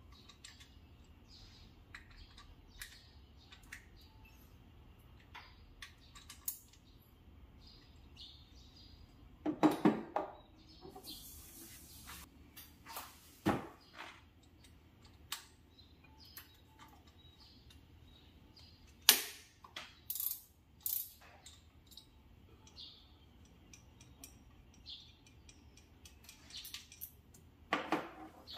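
Hand tools and metal parts clicking and knocking during spark plug work on a car engine: scattered light clicks with a few louder knocks.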